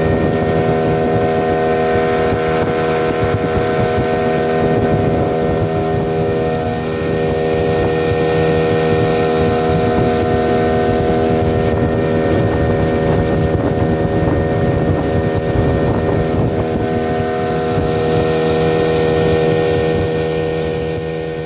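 Outboard motor of a small river boat running steadily under way: a constant engine drone at one speed, with wind and water noise around it.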